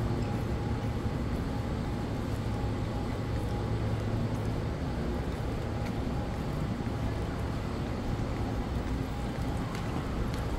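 Steady low hum and room noise of a large, near-empty airport terminal hall, with a few faint clicks.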